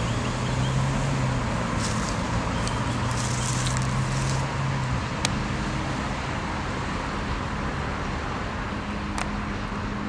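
Slow freight train wagons rolling past on the rails: a steady rumble with a low hum and a few sharp clicks.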